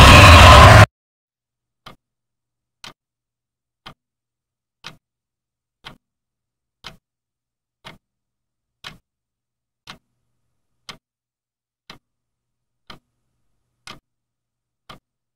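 A very loud, harsh noise blast that cuts off sharply about a second in: a horror jump-scare sting. It is followed by a clock ticking faintly, once a second.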